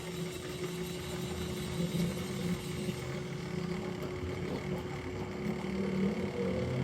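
A steady machine hum from a running motor, with a constant tone over a low, uneven rumble.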